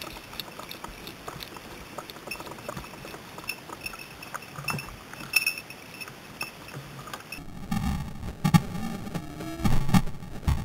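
Footsteps and rustling through dry grass and scrub, with irregular knocks and bumps from the gun being carried; the bumps grow louder and more frequent in the last few seconds.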